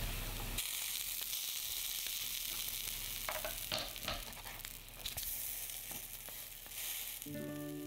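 Oyaki buns sizzling steadily in hot oil in a nonstick frying pan, with a few short scrapes and taps from a spatula as they are lifted and turned midway.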